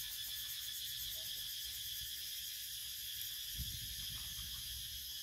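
Steady, high-pitched drone of an insect chorus, with a soft low thump about three and a half seconds in.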